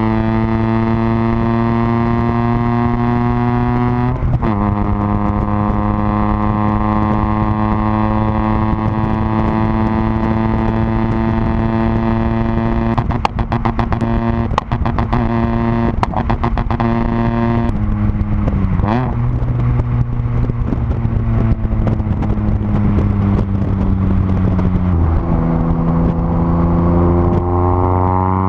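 Renault Kwid's three-cylinder engine running through a full aftermarket exhaust, its note climbing slowly as the car accelerates and dropping in pitch three times, at about 4, 19 and 25 seconds. A cluster of sharp clicks or knocks sounds about halfway through.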